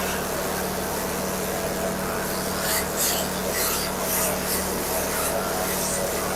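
Grass chopper running steadily with a constant hum, and a rough shredding rasp that comes and goes from about three seconds in as forage is fed through the blades.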